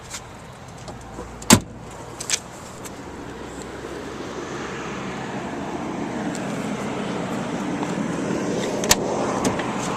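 A car door shutting with a sharp thump about a second and a half in, and a lighter knock just after. Then comes a steady noise that slowly grows louder.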